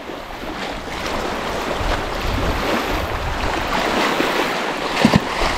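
Wind and small lake waves washing onto a sandy beach, a steady rushing noise, with one short knock about five seconds in.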